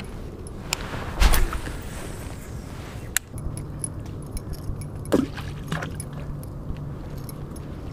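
Baitcasting reel being cranked to retrieve a buzzbait, with small metallic clicks and rattles from the reel and rod in hand. A louder rustle comes about a second in, and a steady low whir of the reel runs from about three seconds in.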